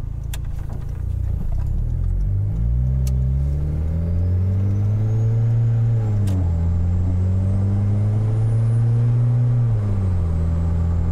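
Golf 3's 1.8T turbo four-cylinder accelerating, its note rising steadily; the DQ250 dual-clutch gearbox upshifts twice, about six and ten seconds in, each shift a quick drop in engine pitch, after which the engine runs at a steady speed.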